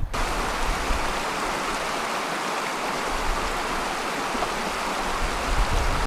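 River water rushing steadily over rocks and shallow rapids.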